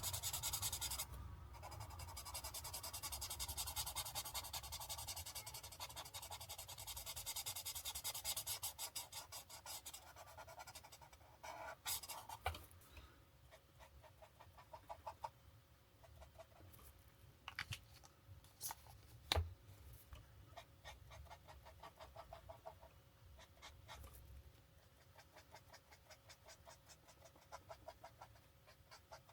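Alcohol marker tip rubbing on paper in quick back-and-forth colouring strokes. About twelve seconds in the strokes become lighter and sparser, with a few sharp clicks.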